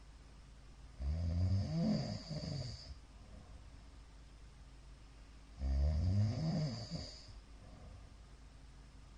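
A middle-aged man snoring loudly in his sleep: two long snores about four and a half seconds apart, each lasting about two seconds, with a wavering pitch.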